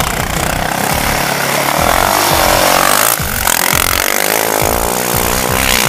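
Sport quad (ATV) engine revving as the quad accelerates away across sand, its pitch rising and falling with the throttle.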